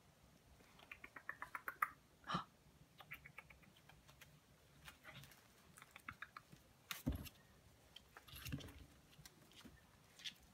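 Coton puppies' claws clicking and scrabbling in quick runs of ticks as they scramble about the pen, with a few thumps, the loudest about seven seconds in.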